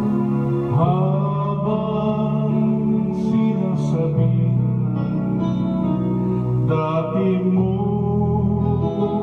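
A man singing a slow ballad into a handheld microphone over a recorded instrumental backing track with guitar and keyboard, holding long notes.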